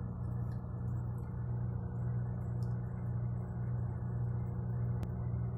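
Truck engine running steadily, a constant low hum heard from inside the cab.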